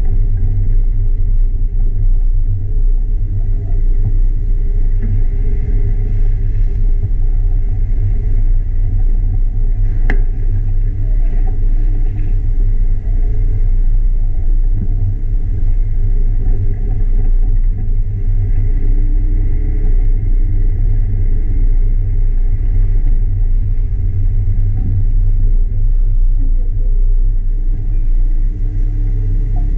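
Jeep Wrangler JK Rubicon engine and drivetrain running at low speed off-road, a loud, steady low rumble, with one sharp knock about ten seconds in.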